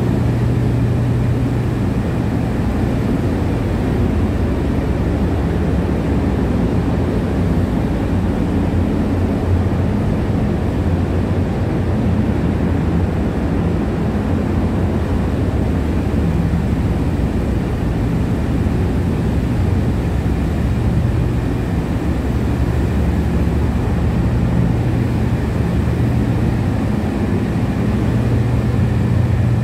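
Steady drone of running machinery in a ship's engine room: a constant low hum with a haze of mechanical noise above it and no breaks or changes.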